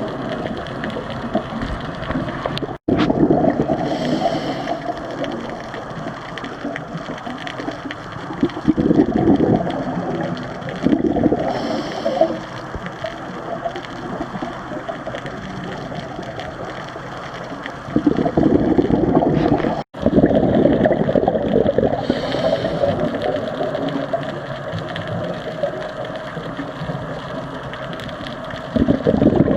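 Underwater sound of a scuba diver breathing through the regulator: exhaled bubbles gurgle and rumble in loud swells every few seconds, some with a brief hiss of inhaled air, over a steady underwater noise.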